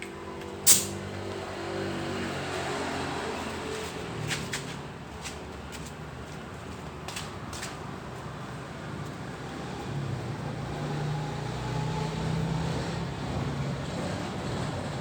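Sharp metallic clicks and clinks of hand tools at work on an Isuzu Panther 2.5 manual transmission being dismantled, the loudest one about a second in. Under them a vehicle engine hums, fading after a couple of seconds and coming back about ten seconds in.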